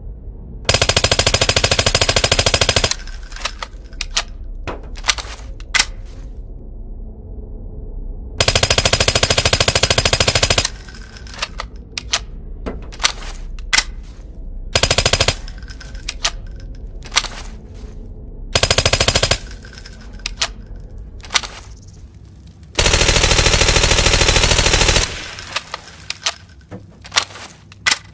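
Integrally suppressed MP5SD submachine gun firing five bursts of full-automatic fire, most about two seconds long and one short, with single sharp clicks scattered in the gaps between bursts.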